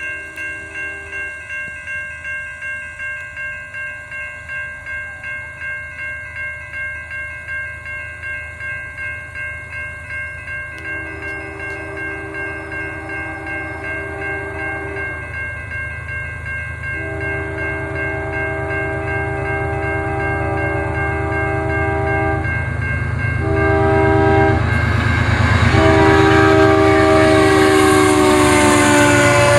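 Grade-crossing warning bell ringing in a steady rhythm while an approaching Canadian Pacific freight train sounds its air horn in the crossing pattern of long, long, short, long; the last long blast slides slightly down in pitch as the locomotive nears. The train's rumble grows steadily louder and becomes the loudest sound near the end as the locomotive reaches the crossing.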